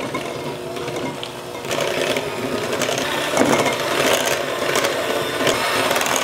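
Electric hand mixer running, its beaters churning thick almond-flour batter in a stainless steel bowl; the sound grows louder about two seconds in.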